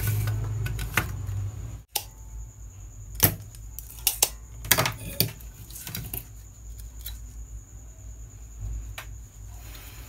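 Scattered sharp clicks and light knocks as a split air-conditioner circuit board and its wires are handled and set down on a workbench. A low steady hum in the first two seconds cuts off abruptly.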